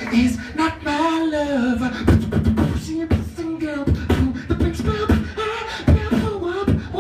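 Beatboxing into a handheld microphone: sharp mouth-made kick and snare hits with a wordless vocal melody weaving over the beat.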